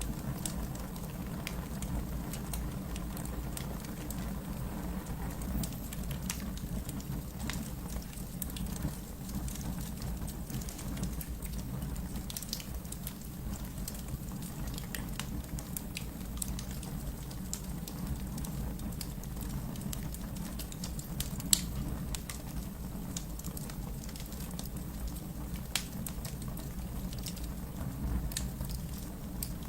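Wood fire burning in a fireplace: a steady low rumble of flames with scattered crackles, and one sharper pop about two-thirds of the way through.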